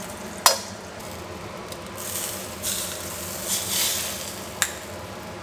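Hot oil sizzling in a frying pan, with a sharp click of metal tongs about half a second in and another click near the end.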